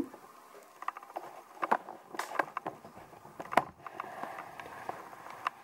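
Scattered light clicks and taps of handling as a small glass yogurt jar is turned over in the hand, with one sharper knock about three and a half seconds in.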